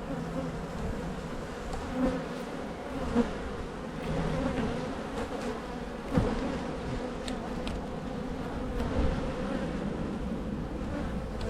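Honey bees humming steadily around an open hive, with a few short knocks, the sharpest about three and six seconds in.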